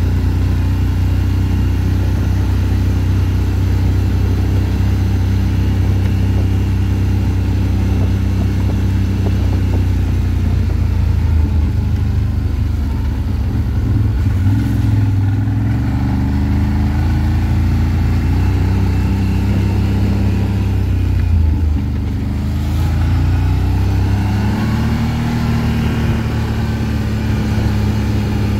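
ATV engine running steadily, its pitch rising and falling with the throttle a few times in the second half.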